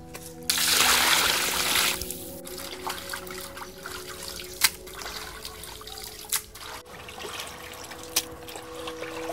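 Water sloshing and trickling as chopped fish pieces are rinsed by hand in a metal basin, with a loud rush of water about half a second in that lasts over a second. A few sharp knocks follow.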